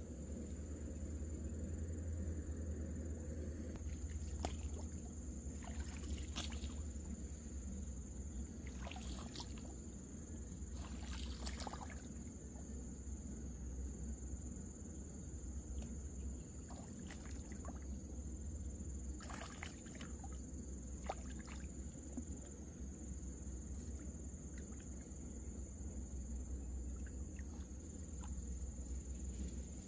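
Insects chirring in one steady, unbroken high-pitched drone, with a handful of short knocks scattered through.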